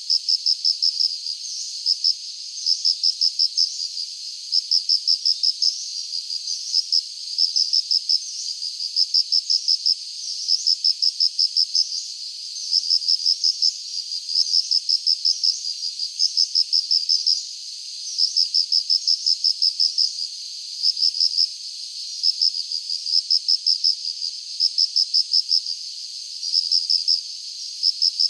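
Insects chirping in a steady rhythm: high-pitched trills of rapid pulses in groups about a second long with short gaps between, over a fainter continuous insect chorus.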